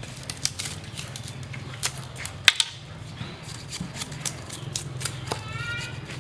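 Large knife blade knocking into and splitting a bamboo pole into thin strips: a run of irregular sharp clicks and cracks, the loudest about two and a half seconds in.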